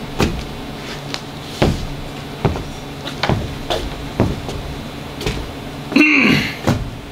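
Slow footsteps on a stage floor, a knock a little under once a second. About six seconds in comes one short, loud vocal sound whose pitch falls.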